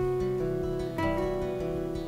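Steel-string acoustic guitar played with the fingers: plucked chords and single notes that ring on, with a fresh chord struck about a second in.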